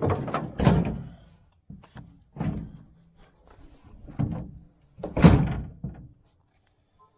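A handful of heavy clunks and thunks spaced a second or two apart, the loudest about five seconds in, each with a short ring.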